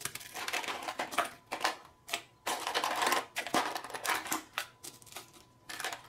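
Ice being tipped and pressed into a plastic container: an irregular run of clattering clicks and crunching crackles.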